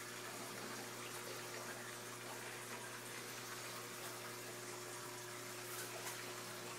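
Faint, steady rush of a saltwater aquarium's water circulation, with a steady low hum under it.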